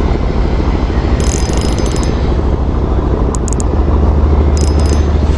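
Spinning reel being cranked, its gears whirring steadily over a low rumble, with a few short sharp clicks.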